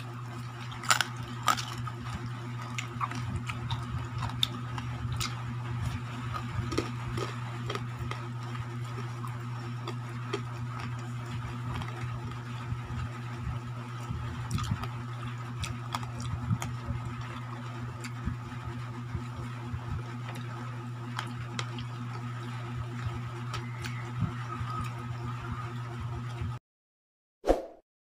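Small clicks and clinks of people eating at a table, with cutlery and plates, over a steady low hum. The sound cuts off abruptly near the end and a short tone follows.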